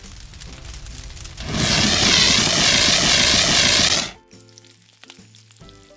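Loud hissing spray with a warbling, wavering tone over it, lasting about two and a half seconds from about a second and a half in, then cutting off suddenly. It fits a toy-play spraying sound effect for putting out the fire, over light background music.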